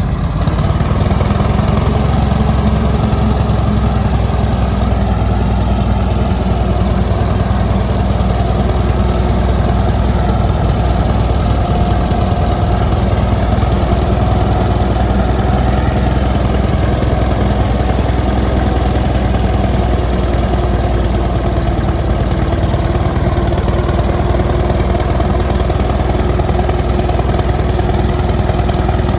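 Vintage tractor engine running steadily at a low, even speed, with a knocking beat.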